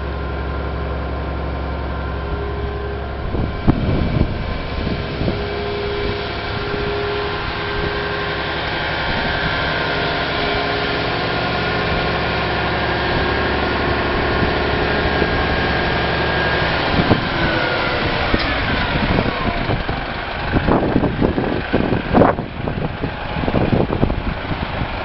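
Hino 700 concrete mixer truck's diesel engine running steadily. About two-thirds of the way through, a whine falls in pitch and the low engine note drops away, followed by a series of irregular clunks and rattles.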